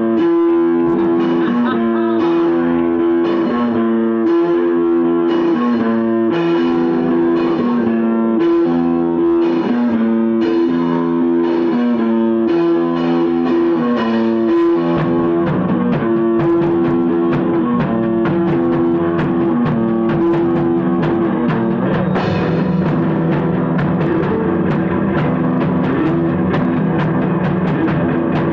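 Rock band playing an instrumental passage: electric guitar repeating a chord riff over bass and drum kit. About halfway through the playing grows fuller and denser, with more cymbal strokes near the end.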